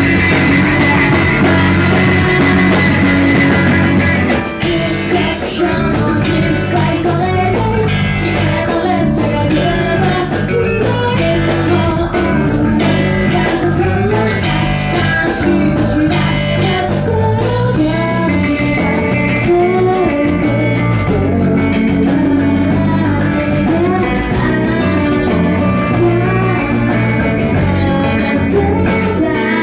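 Live math rock band playing: electric guitars, electric bass and drum kit, with a woman singing. A heavy cymbal wash fills the first few seconds, drops away for a tighter rhythmic section, and comes back about two-thirds of the way through.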